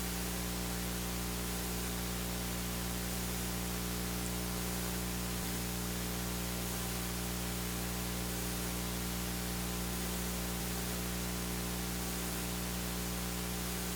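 Steady electrical hum with a constant hiss and no distinct events: the recording's own background noise.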